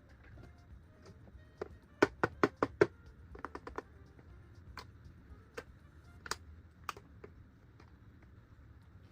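Sharp plastic clicks and taps from toys being handled: a quick run of five loud clicks about two seconds in, a softer flurry right after, then single clicks every second or so.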